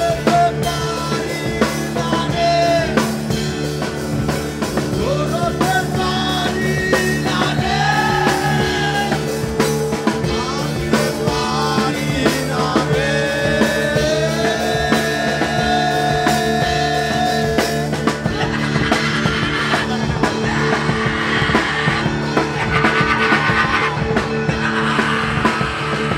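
Live rock band playing loud: a drum kit keeps a steady beat under held guitar chords, while a lead melody bends and glides over them.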